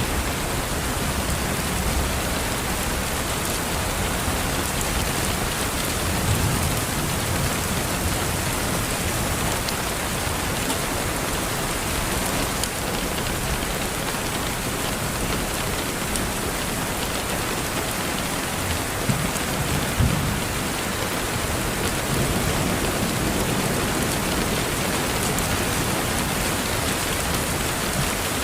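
Steady rain falling on a window pane, an even wash of drop patter. Low rumbles swell briefly about six seconds in and again around twenty seconds.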